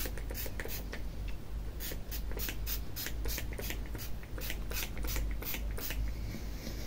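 Pump-mist bottle of leave-in hair spray spritzed onto hair again and again: a quick run of short hisses, two to four a second, with a brief pause about a second in.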